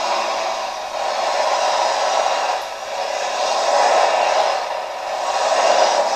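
Competition pulling tractor's diesel engine running flat out under heavy load while it drags the weight sled, a continuous harsh noise that swells and eases a few times.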